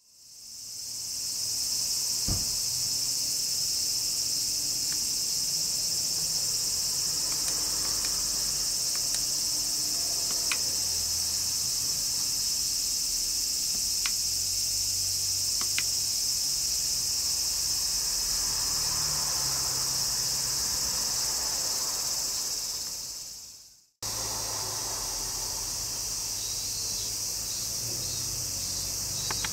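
Steady, high-pitched chorus of insects buzzing without a break. It fades in at the start and fades out near the end, then briefly resumes a little quieter, with a faint low hum and a few light ticks beneath it.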